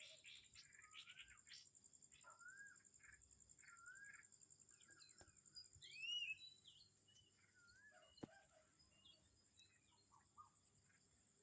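Several birds calling in a morning chorus: short rising whistles and chirps, busiest in the first half, with a brief louder burst of looping calls about six seconds in, then thinning out. A steady high-pitched pulsing buzz runs beneath.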